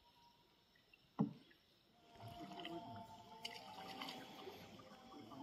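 Canoe paddling on calm water: a paddle knocks once against the canoe's hull about a second in, then quiet paddle strokes and water sounds follow. Faint drawn-out steady tones sit behind them.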